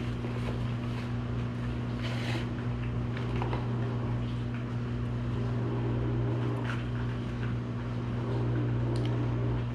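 A steady, low machine hum, with a few faint clicks and rustles from handling.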